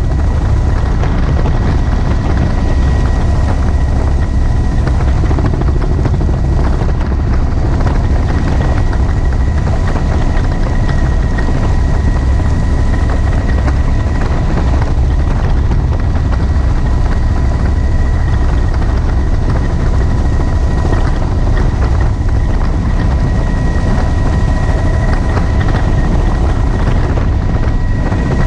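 Helicopter in flight, heard from inside the open-door cabin: a steady, loud rotor and engine din with a thin steady whine over it, and wind rushing on the microphone.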